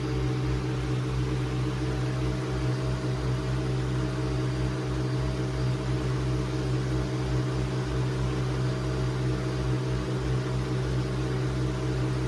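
Nespresso Vertuo Pop+ coffee machine brewing, a steady mechanical hum of its pump and spinning capsule, with the Aeroccino milk frother whirring alongside as it froths almond milk.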